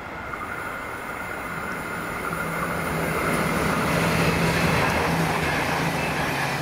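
V/Line VLocity diesel multiple unit running through the station: a steady diesel engine drone under wheel-on-rail noise, growing louder to a peak about four seconds in as the train passes close by.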